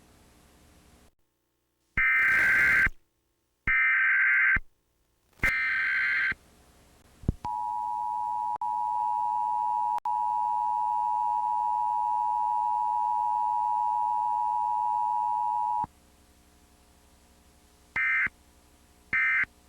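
Emergency Alert System tones: three short data bursts of the digital header, then the steady two-tone attention signal held for about eight seconds. Two brief data bursts follow near the end.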